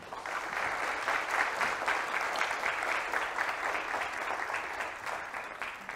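Lecture-hall audience applauding: many hands clapping steadily, easing off slightly near the end.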